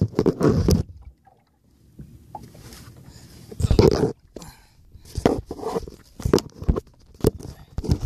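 Handling noise of a phone being moved about on a kayak: rubbing, scrapes and short knocks, with a quiet gap about a second in and a loud burst near the middle.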